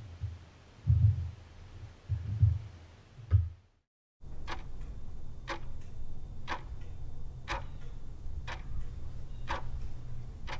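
Soundtrack of deep, irregular thuds, then after a moment of silence a steady ticking about once a second over a low hum, like a clock.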